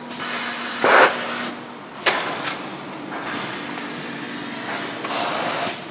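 Vacuum forming machine running: short bursts of hiss and sharp clicks over a steady low hum, with a strong hiss about a second in and a longer one near the end.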